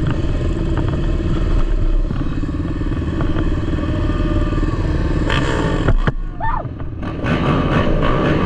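Racing ATV (quad) engines running hard and revving, with a sharp knock and a brief lull about six seconds in before the engine noise picks up again.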